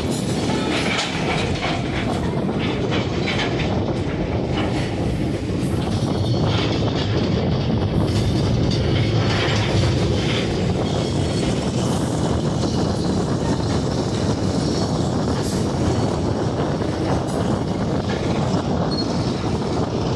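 Train rolling along the rails: a steady rumble of wheels on track with frequent clicks and clatter throughout.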